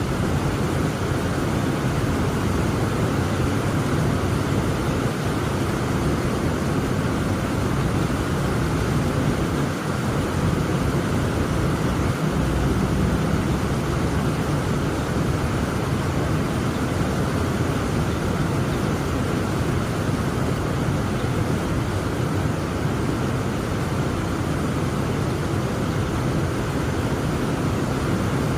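Heavy rain falling steadily: a dense, even rush of noise, strongest in the low and middle range.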